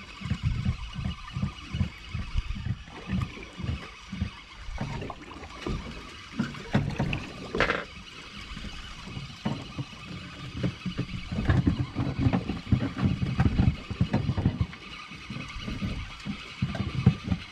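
Small fishing boat at sea: water slapping against the hull in irregular low thumps, over a faint steady hum, with one brief sharp knock about halfway through.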